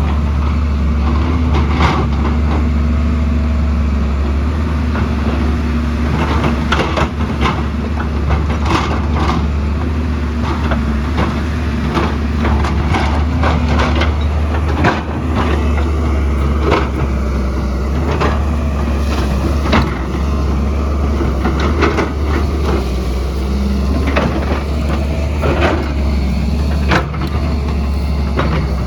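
Hydraulic excavator's diesel engine running steadily under load, with frequent sharp knocks and clanks, typical of the bucket digging into rocky hillside soil.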